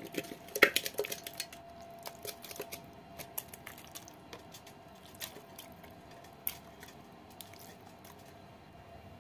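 Raw chicken pieces being put into an aluminium pressure cooker pot: wet squelches and light knocks against the metal, a quick cluster in the first second or so, then scattered ones. A faint steady hum runs underneath.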